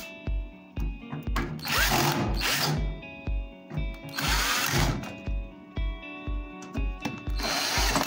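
Background music with a steady thumping beat, over which a power screwdriver whirs in three short bursts, driving the screws of a microwave oven's metal casing.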